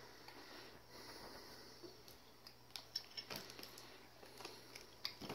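Quiet room with faint light clicks and rustles of small packaged candy and toys being handled, scattered through the second half.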